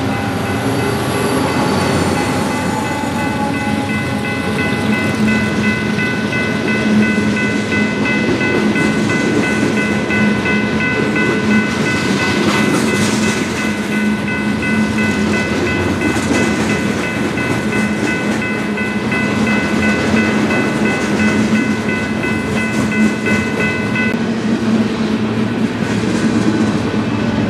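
Union Pacific eastbound freight train rolling past, a steady rumble of wheels on rail with some clickety-clack. Over it runs a steady high-pitched whine, which stops a few seconds before the end.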